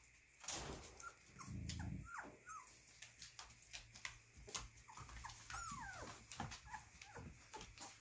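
A litter of 23-day-old puppies squeaking and whimpering as they scuffle in play, with short high yips and one longer whine falling in pitch a little past halfway, over soft scratching and rustling on the blanket. A low bump comes about a second and a half in.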